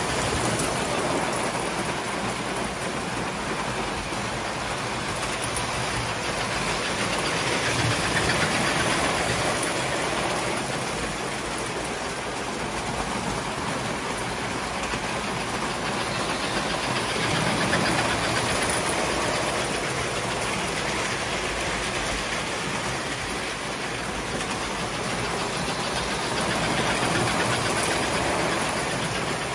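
Vintage tinplate electric model trains running on their track: a steady hum of motors with wheels clattering over rail joints, swelling louder about every nine seconds as a train comes round close by.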